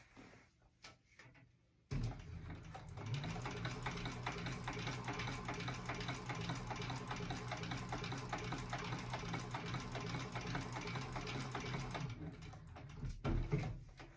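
Industrial sewing machine stitching a straight seam through two layers of vinyl. It starts about two seconds in, runs at a steady speed with a rapid, even stitch rhythm for about ten seconds, then stops, followed by a few light handling knocks.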